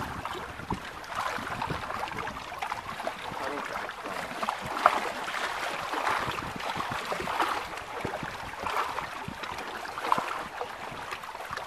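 Small waves lapping and splashing against the hull of a small boat, with a few light knocks, the sharpest about five seconds in.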